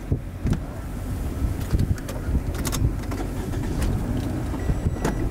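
Gusty wind buffeting the microphone: a steady low rumble broken by irregular sharp pops.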